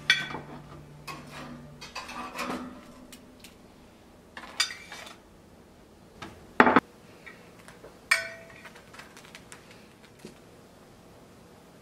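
Metal tongs clinking and scraping against a toaster oven's wire rack and kitchen dishes as slices of toast are lifted out, in short separate clicks with one louder knock about two-thirds of the way through.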